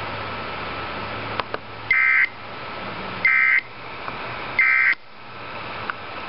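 Emergency Alert System end-of-message code: three short, identical buzzy data bursts, about 1.3 seconds apart, marking the end of the broadcast warning. Between them a steady radio hiss and a few faint clicks.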